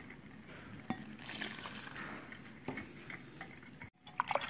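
Water trickling from a jug into a bowl of flour while a wire whisk stirs it, faint, with a few light taps of the whisk against the bowl.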